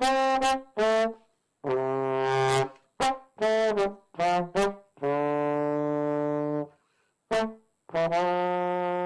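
Solo trombone playing an unaccompanied phrase: several short detached notes broken by silences, and a few long held low notes, the last starting near the end.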